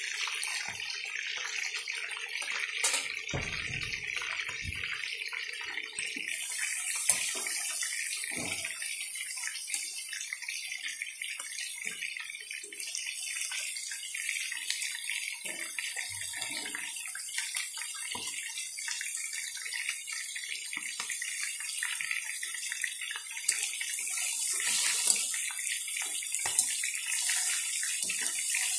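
Chicken pieces and small potatoes sizzling and bubbling in paprika sauce in a pan, a steady hiss with scattered small pops. A few knocks from the tongs against the pan in the first few seconds.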